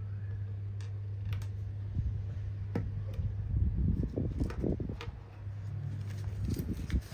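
Small plastic building bricks clicking and rattling as they are picked through and pressed together, an irregular scatter of sharp clicks over a steady low hum.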